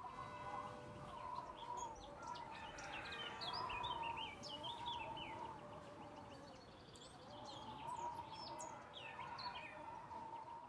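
Faint birdsong ambience: small birds chirping and twittering in clusters, over a steady wavering background murmur.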